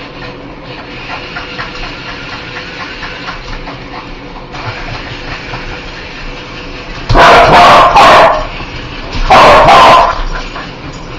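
Dog barking very loudly: a quick run of three barks past the middle, then two more about two seconds later, over a steady background hiss.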